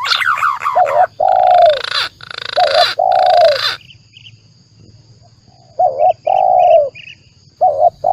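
Spotted doves cooing in paired phrases, a short coo followed by a longer one, about four times. Over the first few seconds a higher, rasping call sits above the coos. It is bird-lure audio for calling in doves and green pigeons.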